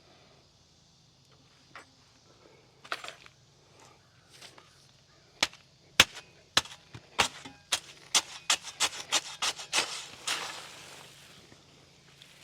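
Dry concrete mix being emptied into a post hole: a run of sharp knocks, about two a second, then a short rushing pour of the mix about ten seconds in.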